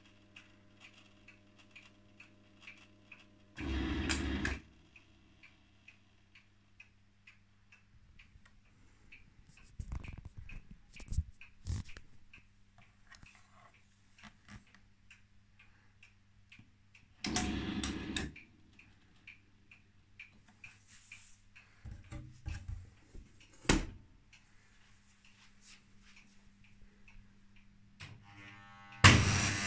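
1968 Scharpf Elektronica 2920 washing machine running a boil-wash program: a steady low hum with a light, regular ticking. Three loud bursts of about a second each come roughly every 13 seconds, and between them there are clusters of sharp knocks.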